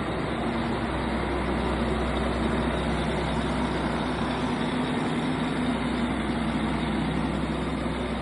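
Diesel engine of a Driltech D40K2 drill rig running steadily at constant speed, with no change in revs.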